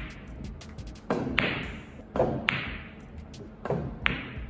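Three sharp clacks about a second apart, each a moment after a softer knock and each ringing briefly in the room.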